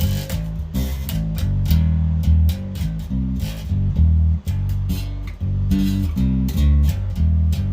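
Glarry jazz-style electric bass with two single-coil pickups played with both pickups on and a basic tone: a quick line of plucked low notes, several a second, each with a sharp attack. It is played through a Peavey Vypyr guitar amp set to its bass-guitar setting, since there is no bass amp.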